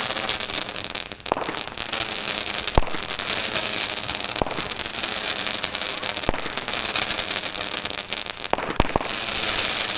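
A lit firework burning with a dense, steady crackling hiss, with sharp single pops every second or two.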